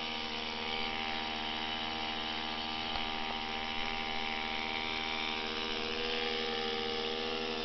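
Small outboard motor running steadily at an even speed.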